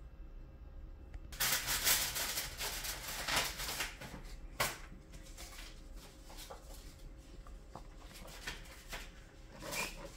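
Plastic comic book bags crinkling and rustling as bagged-and-boarded comics are picked up and handled. The crinkling starts about a second and a half in and is loudest for the next three seconds, then goes on as softer scattered crackles with a brief flurry near the end.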